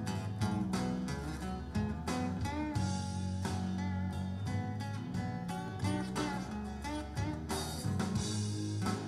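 Guitar-based music played back through a pair of Fisher XP-7 loudspeakers and picked up by a microphone in the room. The music runs continuously with a strong bass line.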